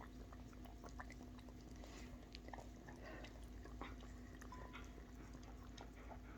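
Faint, scattered wet clicks of a dog licking out a food bowl that held butter and shrimp.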